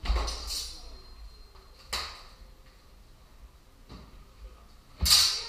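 Steel training swords clashing in sparring: sharp metallic strikes with a short ringing tail, at the start, about two seconds in, and the loudest about five seconds in.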